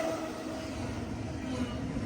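Diesel freight train rumbling by with wind noise over it; the tail of its horn cuts off right at the start.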